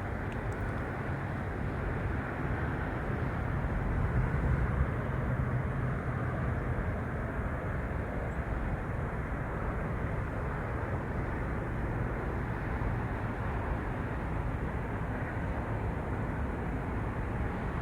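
Steady low rumble of background noise that swells slightly about four seconds in and then eases back.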